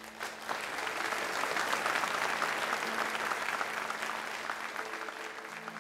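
Audience applauding, a dense patter of many hands clapping that swells over the first couple of seconds and then slowly dies away.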